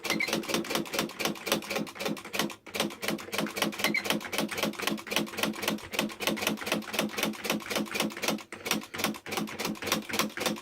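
Smith Corona Mark I electric portable typewriter being typed across its keys in a steady run of sharp keystroke clacks, about six or seven a second, with a brief pause twice.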